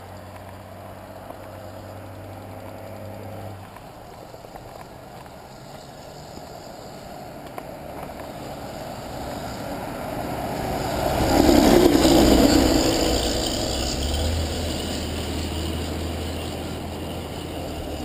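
A truck passing on the road: its engine and tyre noise build over several seconds, are loudest about two-thirds of the way through, then fade away.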